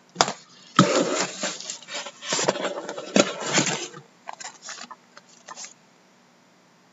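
Cardboard trading-card hobby boxes being slid and lifted by hand out of a cardboard shipping case: scraping and rustling for about four seconds, then a few light taps.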